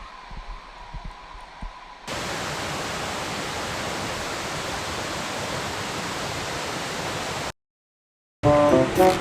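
Steady, even rushing of stream water that starts abruptly about two seconds in, after a low rumble, and cuts off near the end. Background music with plucked notes starts just after the cut.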